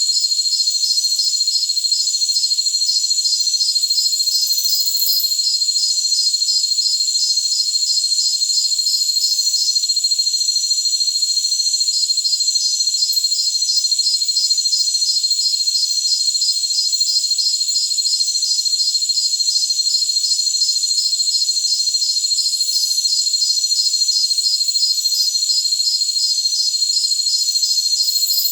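A chorus of jungle crickets: a steady, high-pitched trill with a fast, regular pulsed chirping over it. The chirping stops for about two seconds partway through, then resumes.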